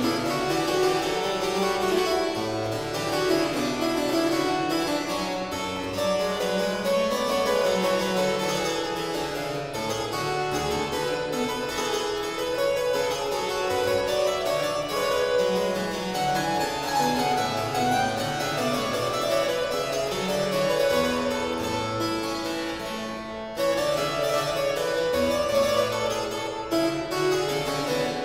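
Frank Hubbard French double harpsichord played solo: a continuous stream of plucked notes in bass and treble together, with one brief break near the end.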